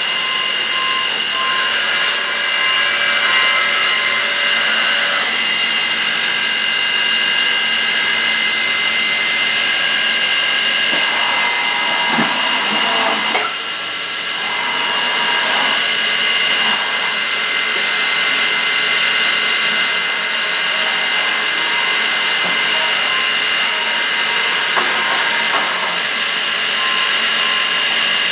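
Bridgeport Torq-Cut TC4G CNC vertical machining center running, a steady high-pitched whine over a hiss of machine noise.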